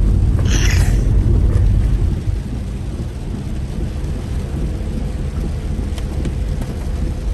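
Heavy typhoon rain drumming on a car, heard from inside the cabin as a steady deep rumble that eases a little about two seconds in.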